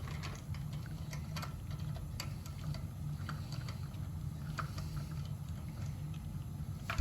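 Scattered small clicks and taps of tools and brake parts being handled during a brake job, over a steady low hum.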